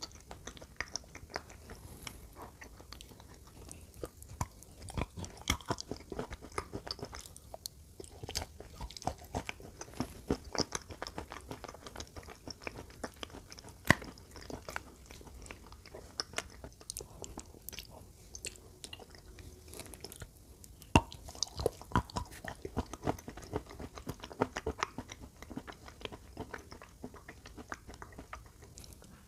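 Close-up chewing and crunching of chunks of chalk coated in wet clay, with irregular crisp crunches and snaps. Two louder snaps come about fourteen and twenty-one seconds in.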